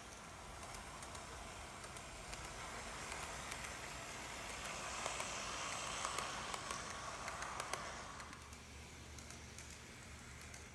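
N-gauge model train, a JR Kyushu 817 series EMU, running past on the track: a light rolling rattle with quick clicks over the rail joints, building to its loudest about halfway through as it passes close, then fading away.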